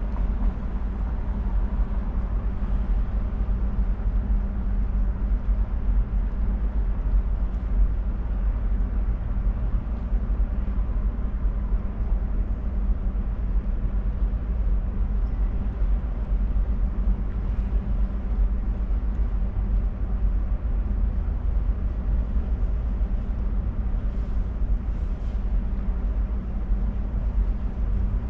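A steady low rumble with a constant hum running through it, unchanging throughout.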